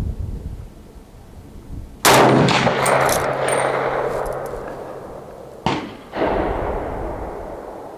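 Two rifle shots from a Century Arms AK-47 with a milled receiver, firing 7.62x39 soft-point hunting rounds, about three and a half seconds apart, each followed by a long fading echo.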